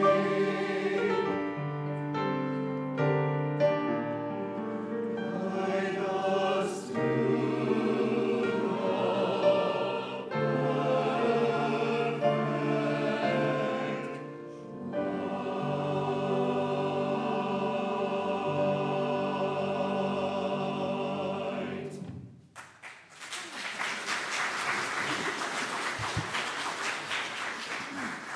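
Mixed church choir singing sustained chords, the piece ending about 22 seconds in. The congregation then breaks into applause.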